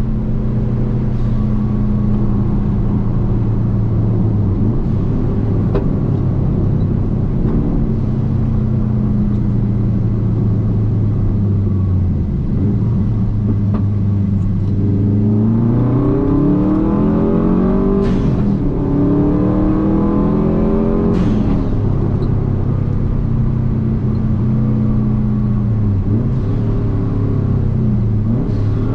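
Car engine running hard at a steady pitch, then revving up in two rising sweeps about halfway through, each topped by a sharp crack, before settling back to a steady note.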